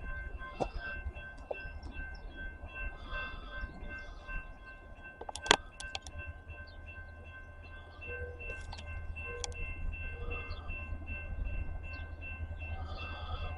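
CSX freight train approaching at a distance: a low, steady rumble that grows louder about eight seconds in, with a sharp click about halfway through.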